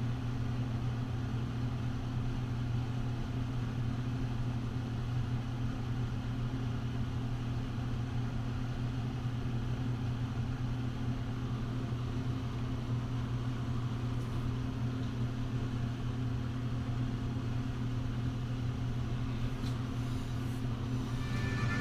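Steady low machine hum at an even level, with a few faint clicks near the end.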